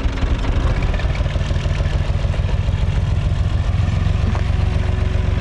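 UTB 445 DT tractor's diesel engine running steadily as the tractor is driven along, a loud low chugging heard from close beside it.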